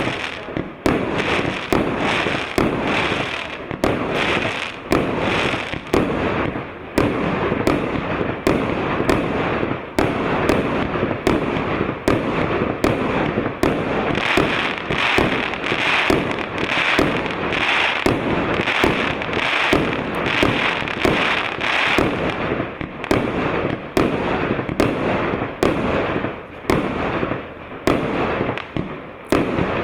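A 100-shot firework cake battery of 1.25-inch (32 mm) tubes firing in rapid succession: a steady run of sharp launch thumps and bursts, several a second, with crackling between them.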